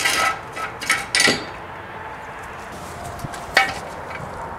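Steel jack stand being set under a car and its ratchet post raised by hand, giving a few sharp, irregularly spaced metal clanks and clicks.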